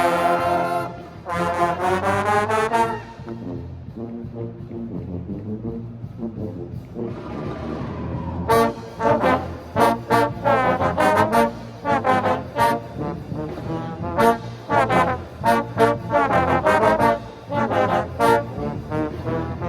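A university pep band's trombone section playing: loud held chords that slide up in pitch, a softer passage, then from about eight seconds in short, punchy notes in a steady rhythm.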